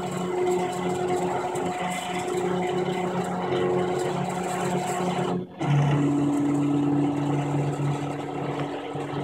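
K40 40 W CO2 laser cutter running a cut in plywood, its stepper motors driving the laser head with a steady pitched hum. The sound drops out briefly about five and a half seconds in and resumes at a lower pitch.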